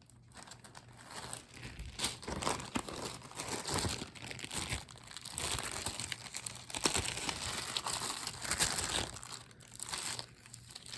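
Small plastic bags crinkling and rustling as jewelry is handled and unwrapped: an irregular run of crackles and small clicks that eases off in the last second or so.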